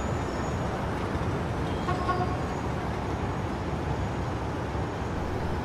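Steady city street traffic noise, a continuous hum of passing vehicles. A brief faint tone sounds about two seconds in.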